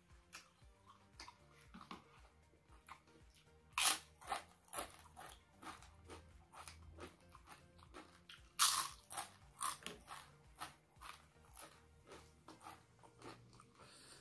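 Thin fried cracker bitten with a loud crunch about 4 s in and again about 9 s in, each bite followed by a run of smaller crunching chews.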